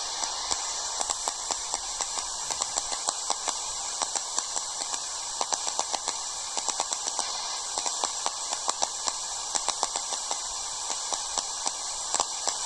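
Radio receiver's steady static hiss with irregular crackling clicks, picking up no transmission.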